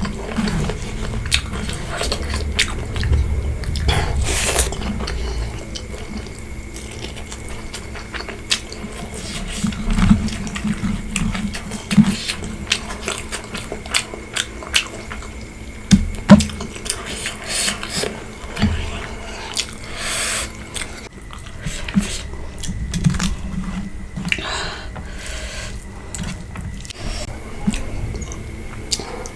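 Close-miked eating sounds: chewing and biting on pork curry, bamboo shoot and rice, with scattered sharp clicks and brief wet smacks.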